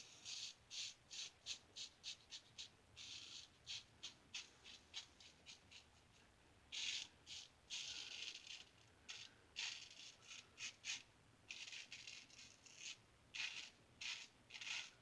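Vintage Star lather catcher safety razor scraping through lathered stubble in many short strokes, a faint rasping feedback of the blade cutting whiskers.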